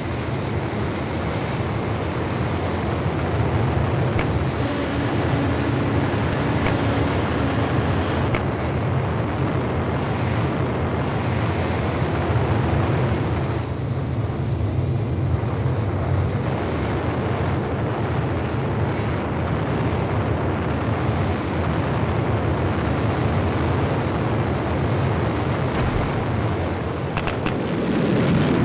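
Sound-effect rocket-engine noise of the Mars Science Laboratory descent stage's thrusters firing during powered descent and sky-crane lowering of the Curiosity rover. It is a steady, dense noise that dips briefly about halfway through and swells again near the end.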